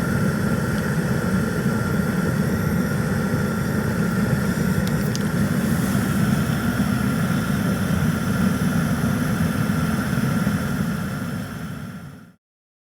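Pressure-jet diesel burner firing: diesel fed at pressure by a small motor-driven gear pump through a boiler nozzle, making a steady low roar with a thin steady whine over it. It fades near the end and then cuts off.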